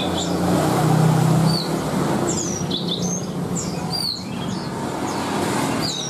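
Many caged songbirds chirping and whistling, short separate calls overlapping each other, over a steady low hum that swells a little about a second in.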